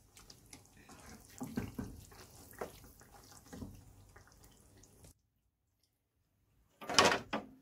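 Spatula stirring and scraping fried chicken masala in a non-stick frying pan, with a faint watery sizzle and a few short scrapes. The sound cuts out about five seconds in, and near the end there is one short, loud clatter.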